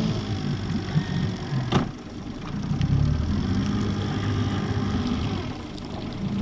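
Small fishing boat's outboard motor running at low speed just after starting, picking up a little about three seconds in. A single sharp knock sounds near the two-second mark.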